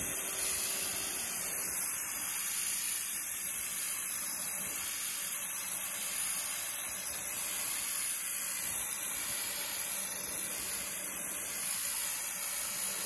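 Worx electric pressure washer spraying a jet of water close onto concrete: a steady, loud hiss of spray striking the surface.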